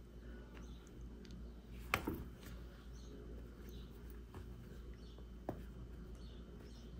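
Faint clicks and rustles of a crochet hook working cotton thread through decrease stitches, with one sharper click about two seconds in and a smaller one later.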